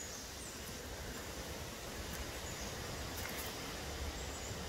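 Steady outdoor background noise with a low rumble, and a few faint, short high chirps.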